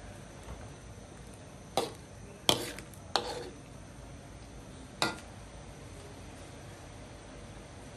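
Metal ladle stirring soup in a wok, knocking against the pan four times with short ringing clinks.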